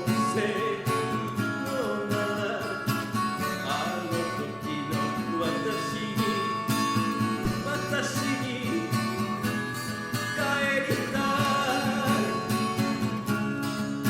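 Music: a song with acoustic guitar playing and a gliding melody line.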